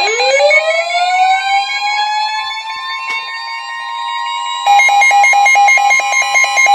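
Emergency alert warning tones: a siren-like tone rises in pitch over the first second and settles into a steady wail under a steady high tone, and rapid pulsing beeps join about two-thirds of the way through.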